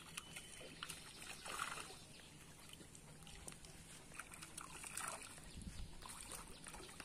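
A hooked fish splashing at the surface of a pond as it is played on a rod and lifted out, with two louder splashes, about a second and a half in and again about five seconds in.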